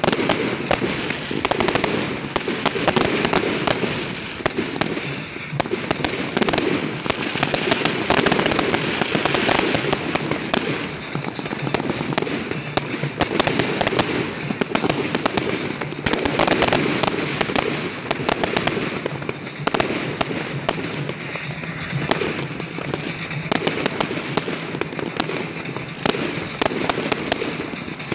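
Many aerial fireworks going off at once: a dense, unbroken stream of bangs and crackling.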